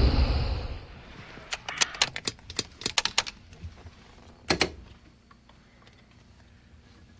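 A loud low rumble fades out within the first second. A quick run of sharp clicks and clacks follows, with two more clicks about four and a half seconds in.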